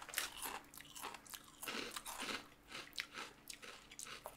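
Crunchy baked cheddar protein puffs being chewed: quick, irregular, crackly crunches.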